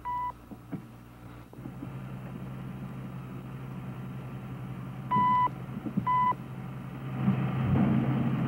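Short, steady high-pitched countdown beeps: one right at the start, then two about a second apart around five seconds in, over a low steady hum from an old broadcast recording. Near the end a rushing rumble builds up: the 1958 Ripple Rock underwater explosion starting to be heard.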